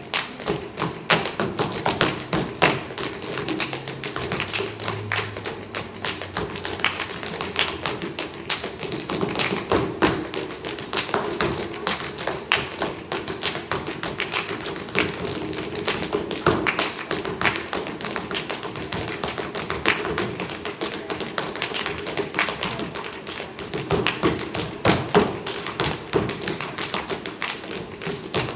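Tap shoes striking a stage floor in fast, dense, irregular rhythms, with sharper accented strikes now and then.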